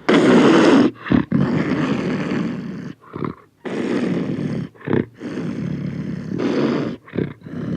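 Tiger roaring and growling: a series of long, rough roars of one to two seconds each, broken by short, sharp intakes or snarls.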